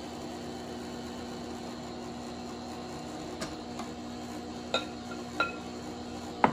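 Electric stand mixer running steadily on speed 3, beating cream cheese. A few light taps in the second half as a small bowl of sugar knocks against the mixing bowl.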